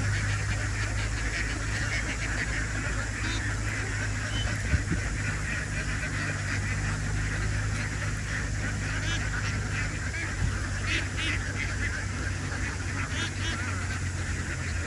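A large flock of farmed ducks calling continuously, a dense overlapping chorus of quacks, over a steady low hum. A single sharp knock about five seconds in.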